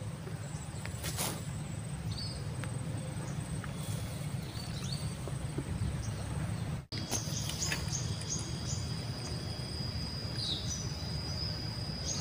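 Outdoor riverside ambience: small birds chirping now and then over a low steady rumble. From about seven seconds in, a steady high-pitched insect drone joins.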